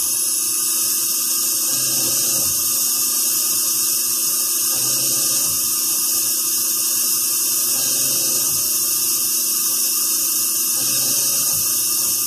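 A lathe's live-tooling spindle is spinning a small cutter into the end of a knife pivot pin, making a steady high-pitched whine and hiss with coolant flowing.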